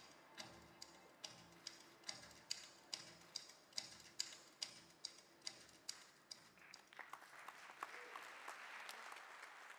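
A soft ticking beat, about two and a half ticks a second over a low pulse, fading away as the music ends. About seven seconds in, audience applause rises and holds.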